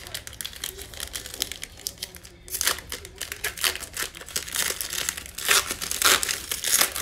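A 2020 Illusions football card pack's plastic wrapper being torn open by hand and crinkling as the cards are pulled out. The crackling grows louder about two and a half seconds in, with the loudest bursts near the end.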